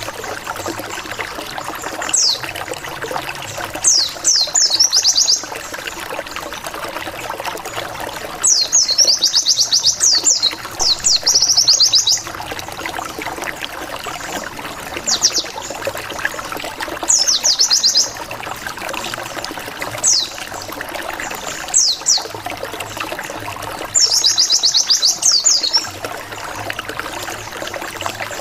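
White-eye (pleci) singing in repeated bursts of rapid, high-pitched downslurred chirps, a 'wit wit wit' volley used as a lure call to provoke rival birds. The bursts come every few seconds, the longest running about three seconds, over a steady hiss-like background.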